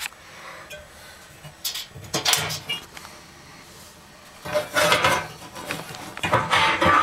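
Hand tool and hands scraping and clinking against the oven bake element's wire terminals and the metal back wall of the oven, in several irregular short bursts.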